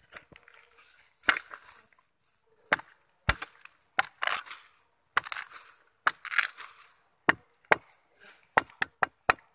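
Irregular sharp knocks and short crackling rustles, with one deep thump a few seconds in. The knocks come quicker, several a second, near the end.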